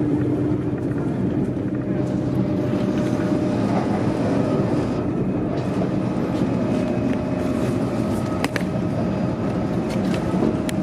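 Cabin noise of a Hitachi-built LNER Azuma train in motion: a steady rumble of wheels and running gear with a faint hum. There is a single sharp click about eight and a half seconds in.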